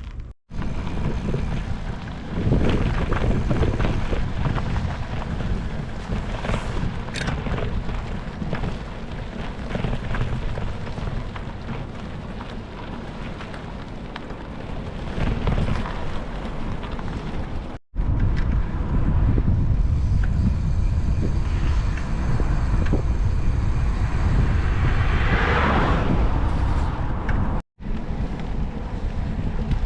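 Wind buffeting the microphone while riding, heard as a heavy, steady low rumble, broken by three short dropouts.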